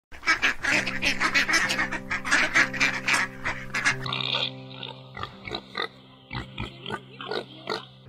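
A flock of domestic ducks quacking, a dense rapid chorus at first that thins out to scattered, quieter quacks about halfway through.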